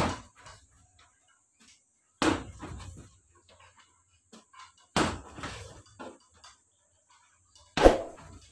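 Gloved punches landing on a hanging heavy bag: four hard hits a few seconds apart, each trailing off briefly.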